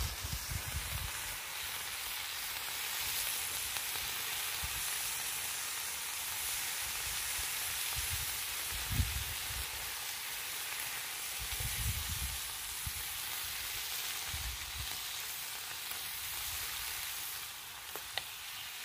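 Water spinach and grasshoppers sizzling in a small wok as they are stir-fried over a wood fire, a steady hiss with a few dull low bumps.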